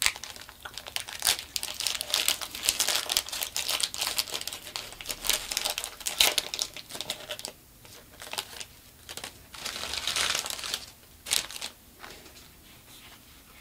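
Foil wrapper of a Pokémon booster pack being torn open and crinkled by hand: uneven crackling in bursts that stops about a second before the end.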